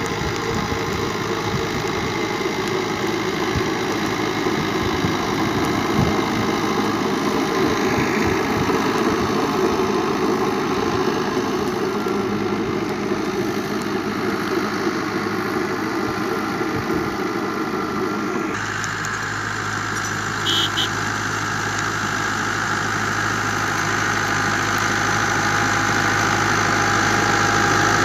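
Fiat 640 tractor's four-cylinder diesel engine running steadily while it drives a rotavator through sandy soil. It grows louder near the end as the tractor comes close.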